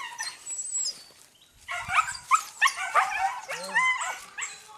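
Hunting dogs yelping during a wild boar hunt, in a run of short, high cries that starts about one and a half seconds in.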